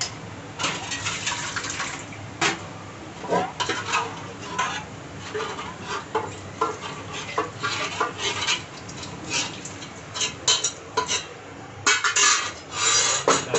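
Metal utensils scraping and clinking against steel cookware: a spoon stirring in a large aluminium cooking pot and scraping a steel bowl out into it. It is a busy run of short scrapes and knocks, with longer, louder scrapes near the end.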